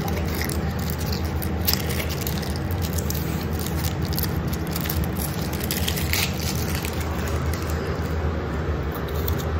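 Gold foil wrapper of a Ferrero Rocher chocolate crinkled and peeled off by hand, in short irregular crackles over a steady low hum.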